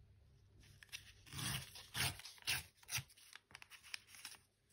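Paper being torn along the edge of a steel ruler, in a run of short, irregular rips starting about half a second in.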